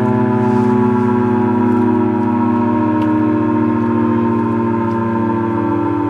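B&M Model 20-AR-10 electromechanical civil defense siren running at full speed, holding a loud, steady, many-toned wail.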